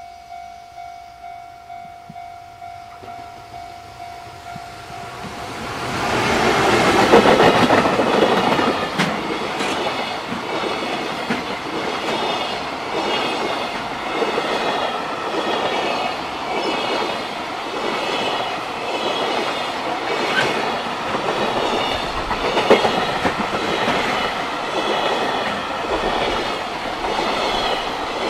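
A level-crossing bell rings in a steady, rapid pulse. About six seconds in, a JR Freight electric locomotive and its long string of container flatcars arrive and pass close by, loud at first, then a steady rhythmic clickety-clack of wagon wheels over the rail joints.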